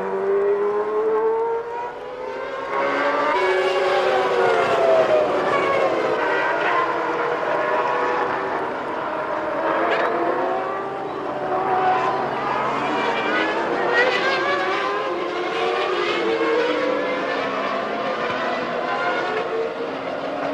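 Several Formula One cars' engines running at high revs on track, their pitch climbing and dropping again and again as they accelerate, shift gear and pass, with more than one car heard at once.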